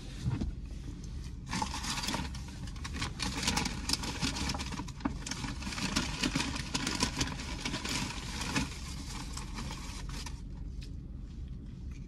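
Paper fast-food bag and wrappers rustling and crinkling as food is rummaged out, starting about a second and a half in and stopping near the end, over a steady low hum.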